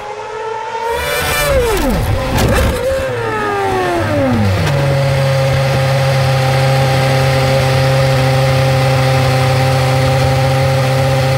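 Onboard sound of a McLaren Formula 1 car's 2.4-litre V8. The revs fall away in several sweeps, with a couple of sharp clatters around two seconds in. The engine then settles to a steady idle as the car sits stopped off the track.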